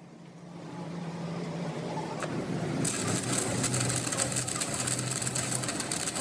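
Workshop machinery running up with a low steady hum, joined about three seconds in by a loud, dense crackling hiss of metalworking on the axle housing.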